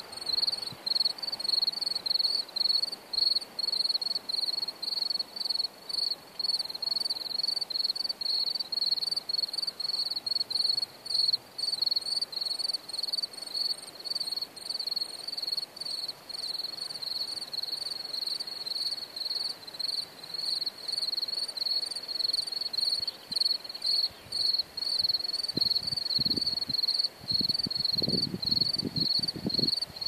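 A cricket singing: a high-pitched chirp repeated evenly several times a second without a break. Some low thumps come in over the last few seconds.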